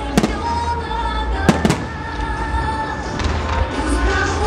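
Aerial firework shells bursting with sharp bangs, once just after the start and twice in quick succession about a second and a half in, over loud music.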